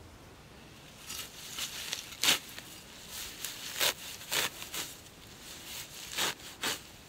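A hand sickle slicing through the stems of wild greens and grass: a string of short, crisp rips and rustles at irregular intervals, starting about a second in, the loudest a little after two seconds.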